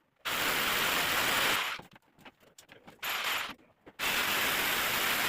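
Power drill boring a hole into the wall, running in three bursts: a long one near the start, a short one about three seconds in, and another from about four seconds in.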